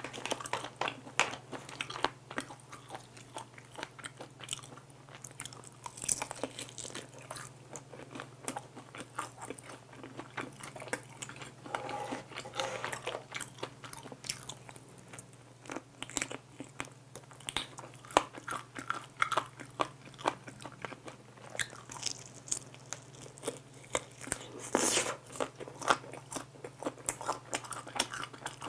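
Biting and chewing crispy sauced fried chicken wings: repeated sharp crunches of the fried coating, with a louder run of crunches near the end.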